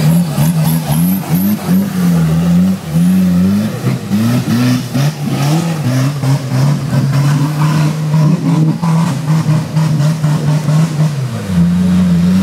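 Modified Suzuki Samurai 4x4's engine revving hard in quick surges as it claws up a muddy slope, then held at high revs for several seconds under full load, then surging again near the end. Scattered clatter of dirt and stones thrown by the tyres rides on top.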